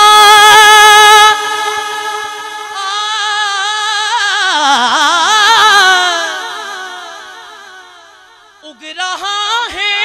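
Male naat reciter singing a long drawn-out melismatic note on "Karbala", loud at first and then wavering up and down. It swells again in the middle and fades away, and a new sung phrase begins near the end.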